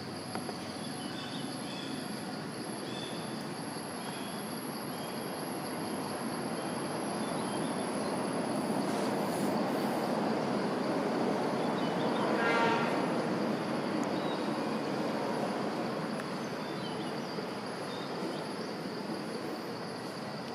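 Outdoor ambience: a steady high insect drone over a broad rumbling noise that builds toward the middle and eases off, like a vehicle passing, with a brief pitched tone at its loudest point.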